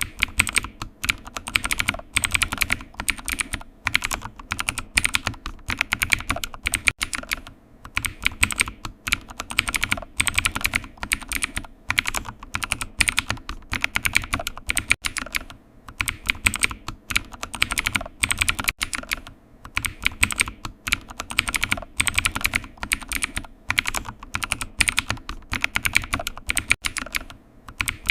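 Computer keyboard typing: a rapid, continuous stream of key clicks with short pauses every few seconds.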